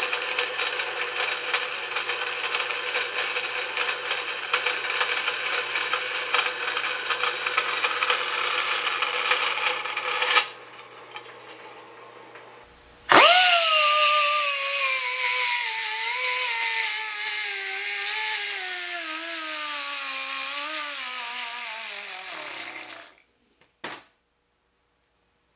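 Vertical bandsaw cutting a metal flange plate, trimming a piece that was too big for the tank hole, running steadily for about ten seconds. After a short lull, a machine whine starts suddenly and falls steadily in pitch over about ten seconds as it winds down, then fades out.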